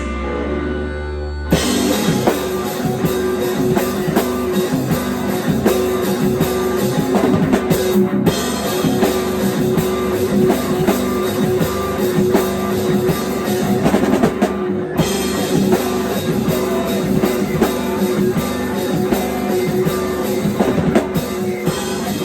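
Rock music with a drum kit and guitar; a quieter opening bursts into the full band about a second and a half in.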